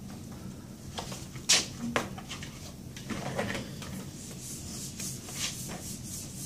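Whiteboard eraser wiping across a dry-erase whiteboard in a series of irregular rubbing strokes, the sharpest about a second and a half in.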